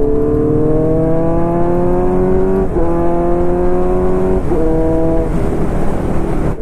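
Kawasaki Z900's inline-four engine pulling hard under acceleration, its note rising in pitch. There are two short breaks where the pitch steps down slightly as it upshifts. Near the end the engine note fades under steady wind rush on the microphone.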